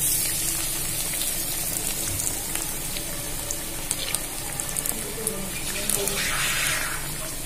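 Batter-coated bread pakora deep-frying in hot oil in a kadhai: a steady sizzling hiss with scattered crackles, starting suddenly as the slice goes into the oil, and swelling briefly about six seconds in.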